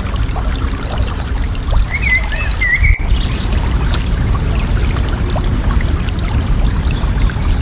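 Water babbling and trickling steadily, with one short warbling bird call about two seconds in.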